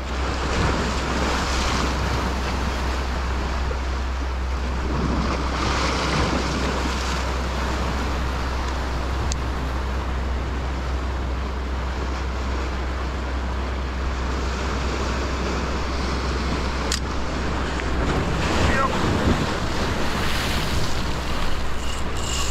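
Sea swells surging and washing over a rocky reef edge, building up in several loud washes, with wind rumbling on the microphone.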